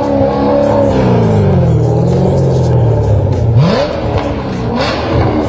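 Chevrolet Corvette C7's 6.2-litre V8 revved loud through an ARMYTRIX cat-back valvetronic exhaust. The revs fall away slowly for about three seconds, then a quick sharp blip at about three and a half seconds, and they drop again.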